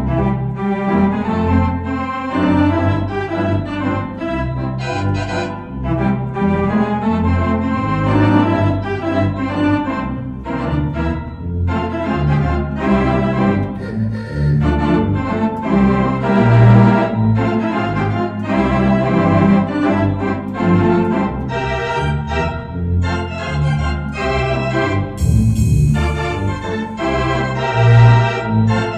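Allen Q321-SP digital theatre organ, voiced with a Morton theatre-organ suite, playing a show tune in full chords over a strong bass line. There is a brief bright, hissy accent near the end.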